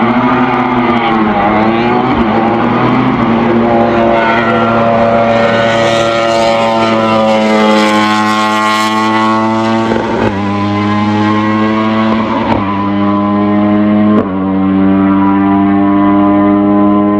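Racing engine of a hillclimb competitor under hard acceleration. It wavers on and off the throttle at first, then pulls with a long rising note. Three quick upshifts follow, about 10, 12½ and 14 seconds in, each dropping the pitch before it climbs again.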